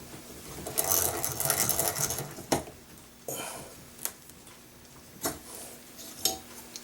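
Small metal clock-repair tools at the workbench: a fast metallic rattle lasting about two seconds, then a few separate sharp clicks and taps as the bushing cutters are handled.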